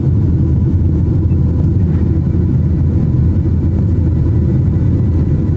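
Aircraft engines at takeoff: a loud, steady low rumble.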